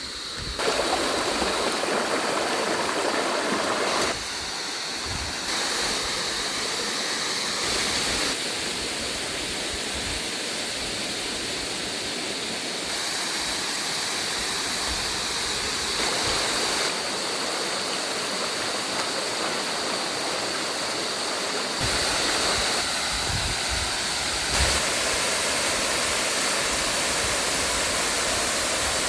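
Rushing water running steadily, its level and tone shifting abruptly several times.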